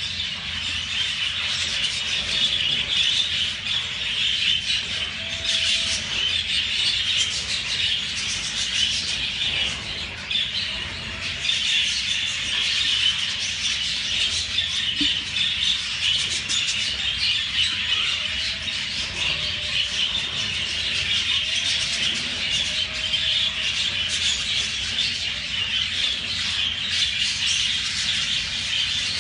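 Budgerigar chatter: a steady, dense twittering and warbling with no pauses.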